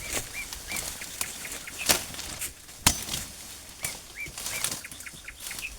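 A bird calling in short repeated chirps, in two runs, with a few sharp knocks among them, the loudest about two and three seconds in.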